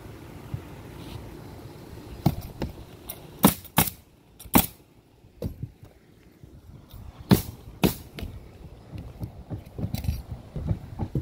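A roofer moving about on an asphalt shingle roof: sharp knocks and clacks of footsteps and handling, with tools rattling in a tool belt. About seven sharp knocks, some in quick pairs, over a low steady rumble.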